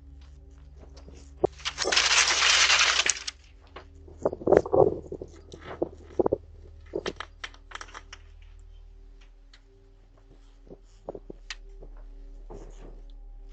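Window glass being smashed: a loud crash of shattering glass about two seconds in, lasting a second and a half. It is followed by a few seconds of crunching, clattering and knocks as the broken glass is dealt with, over a faint steady hum.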